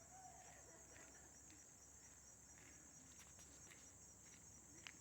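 Faint insect chorus: a steady, high-pitched trill like crickets, with a few soft clicks in the second half, the sharpest just before the end.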